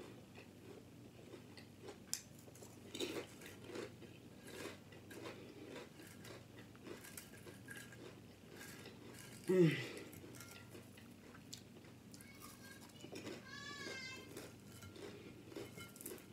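Potato chips crunching faintly and irregularly as they are chewed. About halfway through, a short low voice-like sound falls sharply in pitch, the loudest sound here, and a little later comes a brief warbling high-pitched sound.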